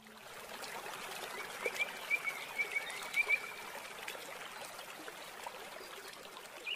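Nature ambience: a steady hiss like running water, with a run of short, quick chirps from a small animal between about two and three and a half seconds in, and more chirps starting at the very end.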